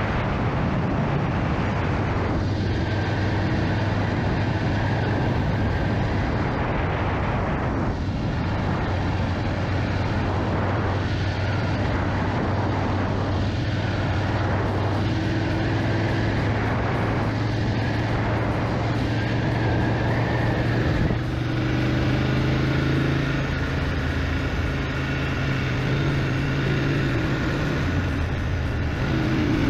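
BMW GS motorcycle under way: a steady engine drone under a constant rush of noise, with the engine note shifting about two-thirds of the way through.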